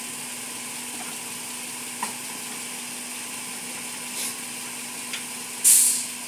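Small clicks from hands working behind a car's front wheel, over a steady hiss. A short, loud rasp of noise comes about five and a half seconds in.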